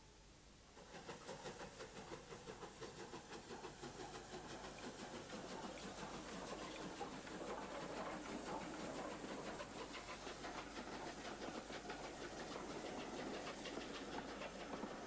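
Steam locomotive working a train, its exhaust and running noise starting about a second in and growing steadily louder as it approaches.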